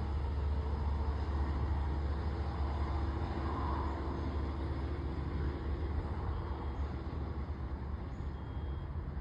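Long Island Rail Road diesel locomotive train running away into the distance: a steady low engine rumble that slowly fades.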